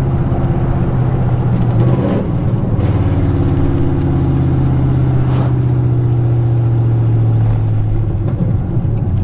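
Cammed 5.3-litre V8 of a Chevy Silverado running on open long-tube headers, heard from inside the cab while driving: a loud, steady exhaust drone. The drone changes briefly about two seconds in and eases slightly near the end. A single sharp click comes about five seconds in.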